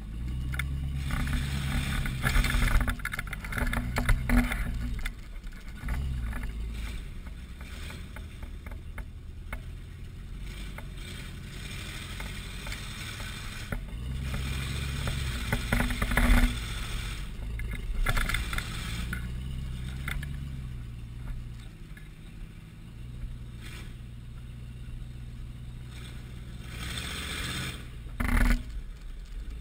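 Lifted 4x4's engine crawling at low speed over rock, its revs rising and falling in several pushes, with tyres grinding and crunching on loose rock.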